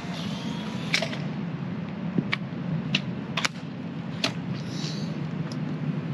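A Polaroid Sun 660 autofocus instant camera taking a picture: a few sharp clicks, then a short faint whir as the motor ejects the print. Steady low street noise runs underneath.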